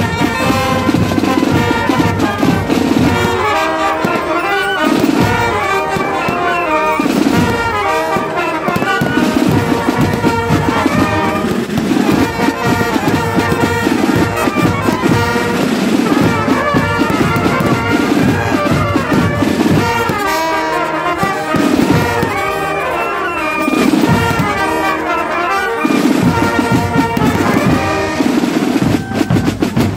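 Brass band playing a carnival dance tune, with fireworks bursting and crackling overhead.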